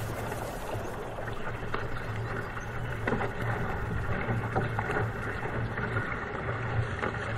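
Water rushing and splashing against a sit-on-top ocean kayak's hull and paddle blades as it is paddled through choppy sea, with wind buffeting the boat-mounted camera's microphone. Irregular splashes come about once a second over a steady low rumble.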